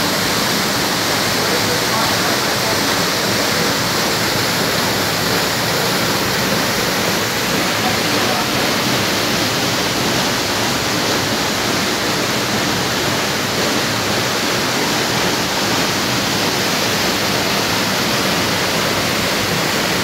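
Waterfall pouring over a rock ledge into a pool: a steady rush of falling and churning water.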